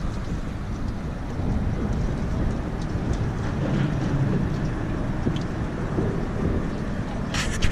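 Wind buffeting the camera microphone, a steady rough rumble with no engine tone in it. A short clatter sounds near the end.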